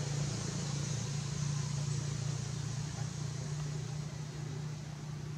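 Steady low hum under an even background hiss, easing slightly near the end.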